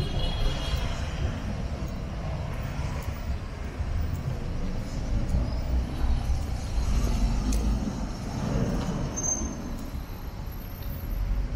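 City street traffic: cars and buses running past with a steady low rumble, and a brief high-pitched squeal near the start, like a bus brake.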